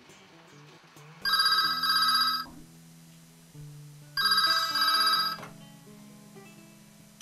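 Corded landline desk telephone ringing twice, each ring a double burst of electronic trilling, over soft background music.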